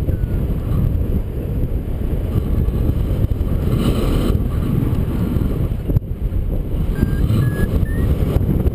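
Wind rushing over the microphone of a camera on a paraglider in flight, a steady heavy buffeting. Near the end a few faint short beeps step up in pitch.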